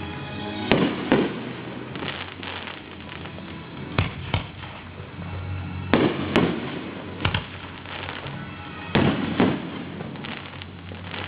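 Fireworks display: aerial shells bursting with sharp bangs, mostly in quick pairs, every two to three seconds.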